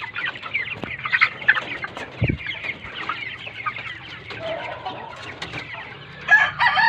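A flock of broiler chickens peeping continuously in many short, overlapping falling chirps, with louder, longer calls that rise and fall near the end. A single low thump sounds about two seconds in.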